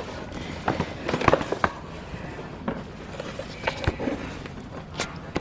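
Plastic snack bag crinkling and crackling as it is handled, in irregular sharp clicks.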